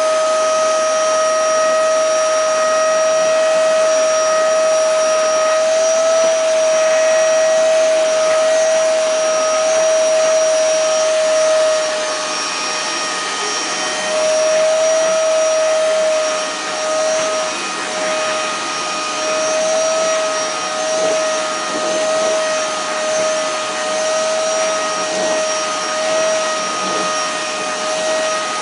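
Vacuum cleaner running with a steady high whine over a rushing hiss. About halfway through it gets a little quieter and its pitch starts to waver.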